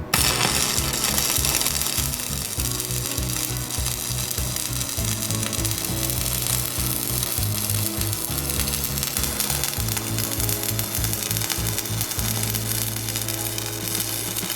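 Electric arc welding crackling and sizzling steadily as weld passes are laid to attach a new tooth to a backhoe bucket; the arc strikes suddenly at the start. Background music with a bass line plays underneath.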